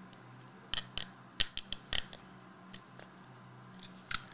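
Plastic packaging of a sealed trading card box being pried and torn open by hand: a quick run of sharp crackles and clicks about a second in, and one more near the end.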